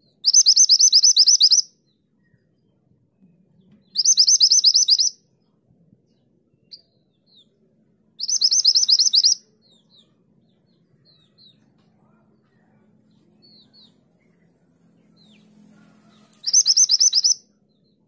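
Mantenan gunung, a minivet, calling its rapid 'tulit tulit' song in four loud bursts of high-pitched, fast-repeated notes, each about a second and a half long. The first three come about four seconds apart and the last after a longer pause near the end, with a few faint single chirps between.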